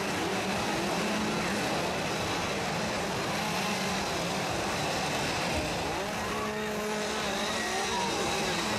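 Several two-stroke chainsaws running and being revved together, their engine notes rising and falling in pitch over a steady idling hum.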